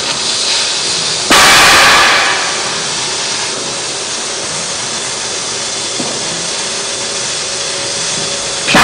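CNC oxy-gas cutting torch burning through metal plate: a loud, steady hiss of the cutting jet and flame. About a second in the hiss surges much louder for about a second, and surges again just before the end.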